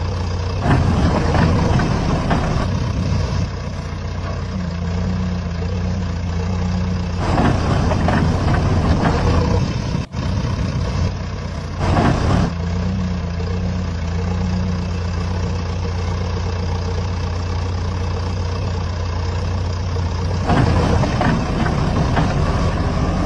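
Heavy engine running at a steady idle, swelling louder several times as if revving under load.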